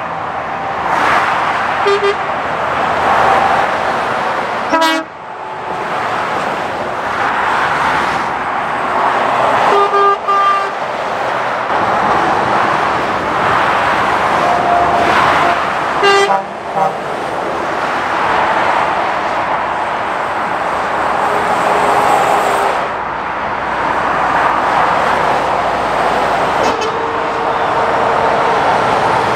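Steady motorway traffic noise as lorries and cars pass at speed. Several short vehicle-horn toots are heard through it, and a longer steady horn blast comes near the end.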